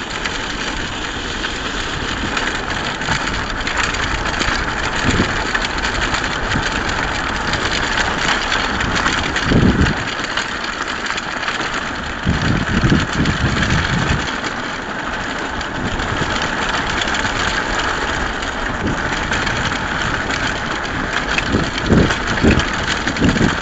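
Wheels of a dog-training rig rolling over a bumpy gravel trail behind a running team of four sled dogs: a steady gritty rumble, with a few low thumps over bumps around the middle and near the end.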